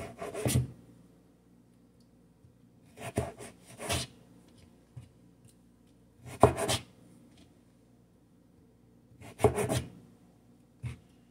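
Kitchen knife cutting through food onto a plastic cutting board: short bursts of knocks and scraping strokes every few seconds, with a single tap near the end.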